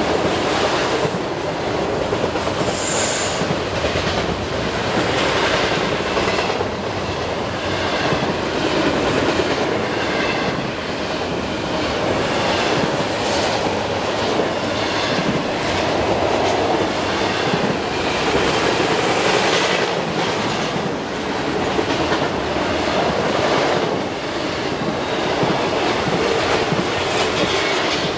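Double-stack intermodal freight train rolling past: a steady rumble of the well cars with wheels clicking over the rail joints.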